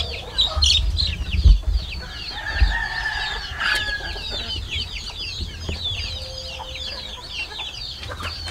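Chickens calling: a steady run of high, short falling peeps throughout, with a longer drawn-out call from about two to four seconds in and a couple of low thumps early on.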